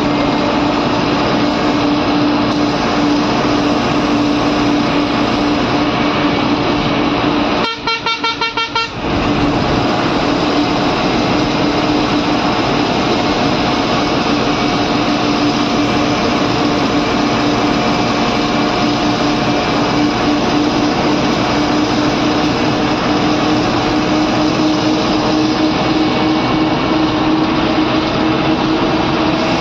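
Bus running on the road, heard from the driver's cab: steady engine and road noise with a constant droning tone. About eight seconds in, the horn sounds in a quick series of about six short toots.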